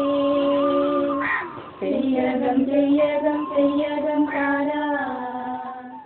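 A child singing a slow melody in long held notes, with a short pause about a second and a half in.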